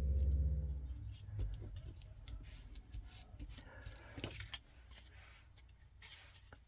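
Faint rustling and small taps of cardstock pieces being handled and pressed into place on a glued panel, a few seconds of scattered light clicks. A low hum fades out in the first second.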